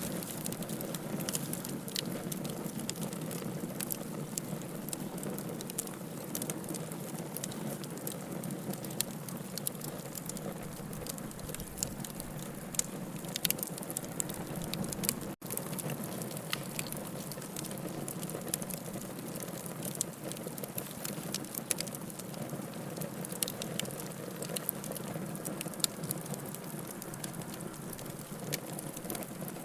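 Bonfire burning: wood crackling and popping in many sharp irregular snaps over a steady low rush of flame.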